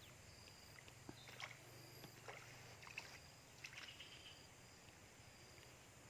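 Near silence, with a few faint scattered water splashes and light ticks, typical of a hooked Nile tilapia being played and landed.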